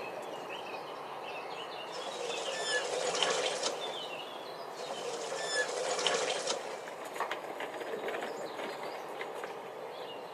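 Birds chirping and singing, with a wheelbarrow wheel rattling and squeaking in two louder swells, about two and five seconds in.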